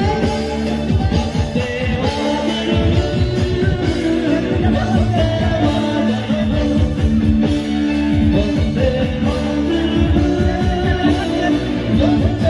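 Live band music with a singer, played loud through a PA system at an open-air concert, with a steady drum beat under the vocal line.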